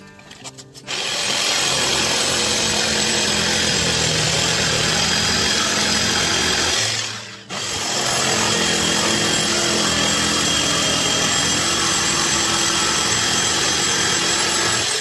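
Orange INGCO handheld power tool running steadily while working a small block of wood; it starts about a second in, stops briefly around seven seconds and starts up again.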